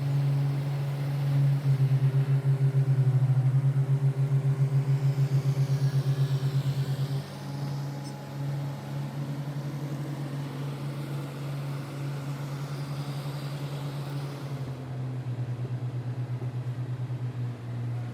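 An engine running steadily, with a fast pulsing throb for the first several seconds that then settles into a steadier hum.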